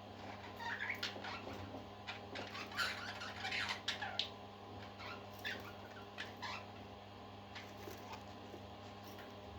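Parakeets chirping and chattering in short, quick calls, busiest in the first half and thinning out after about five seconds, over a steady low hum.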